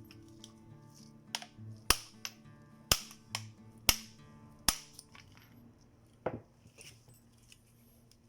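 A hammer striking a 27 mm socket used as a drift to drive the bearing into a Honda Civic power-steering rack housing: about six sharp metal blows, roughly one a second, over low background music.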